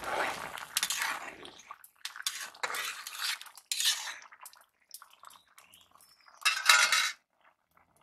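A metal spatula and spoon scrape and clink against a metal kadai and dishes while a curry is stirred. The sound comes in several short bursts, the loudest about six and a half seconds in.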